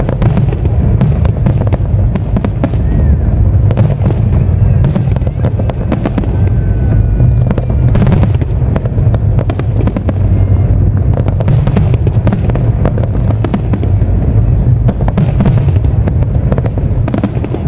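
Aerial fireworks going off in a dense, loud barrage: many sharp bangs and crackles over a continuous low rumble.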